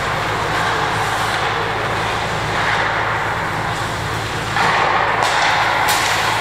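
Ice rink arena ambience: a steady machine hum under a wash of noise that grows louder about four and a half seconds in.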